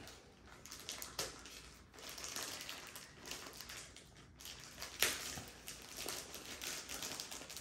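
Thin plastic bag crinkling and tearing as fingers pick and pull it open, with a sharper crackle about five seconds in.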